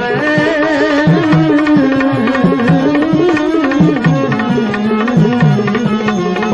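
Devotional bhajan music: tabla playing a steady rhythm under a melody of long, wavering held notes, with plucked strings joining near the end.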